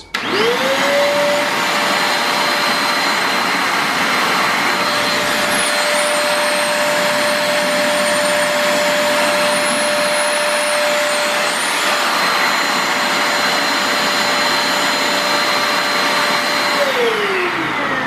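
Multilaser HO03 1000 W stick/hand vacuum cleaner switched on, its motor whine rising within about a second, then running steadily with a rush of air and a thin high whistle. It is switched off near the end, the whine falling as the motor spins down.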